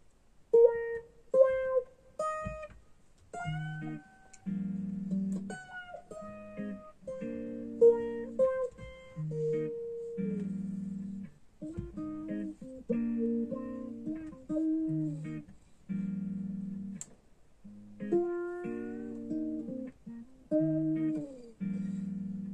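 Ibanez electric guitar being picked: a run of short separate notes, then held chords and melody lines with a few bent notes gliding in pitch.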